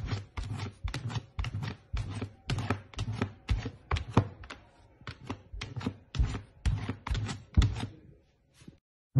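A golden retriever puppy pawing repeatedly at a clear plastic container: a quick, uneven run of knocks and thuds, about three a second, that stops shortly before the end.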